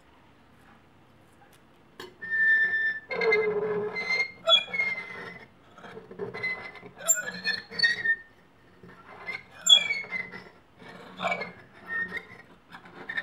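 Knife blade scraped across window glass: a run of unpleasant, irregular high-pitched squeals and screeches, some sliding down in pitch, starting about two seconds in.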